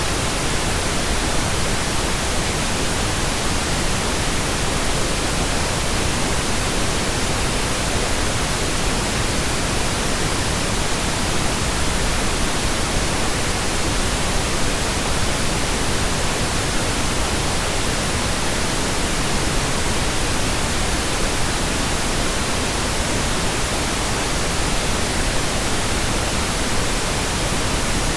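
Steady computer-generated pink noise: an even, unchanging hiss spread across all pitches.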